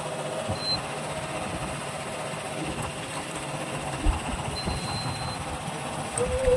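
An engine on a fishing boat running steadily at a low idle, a constant low hum.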